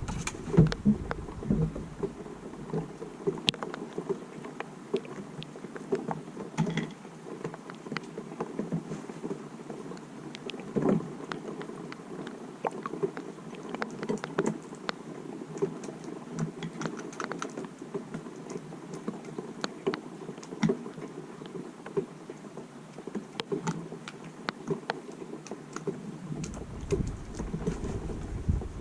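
Rain falling in irregular light taps and pattering drops over a steady low hiss.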